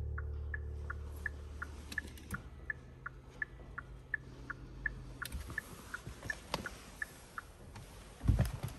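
Kia Carnival's in-car warning chime: short, evenly spaced electronic beeps, about three a second, stopping about seven and a half seconds in. A few sharp clicks come through it, and a heavy thump follows near the end.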